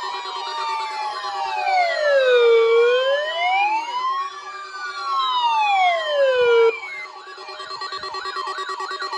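Electronic sirens sounding a slow wail, several at once, each sweeping up and down over about four seconds. About two-thirds of the way through they switch abruptly to a fast yelp of about four cycles a second.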